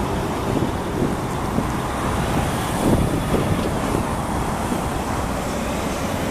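Diesel engine of a new DAF tractor unit running as the truck pulls slowly past and away, mixed with steady road traffic noise.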